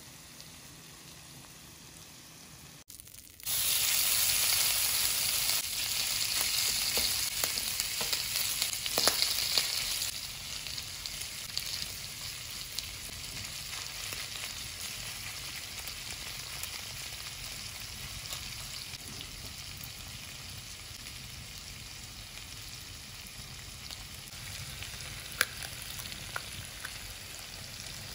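Pork sisig sizzling on a hot sizzling plate: a loud hiss starts suddenly a few seconds in, then from about ten seconds in eases to a steadier, quieter sizzle.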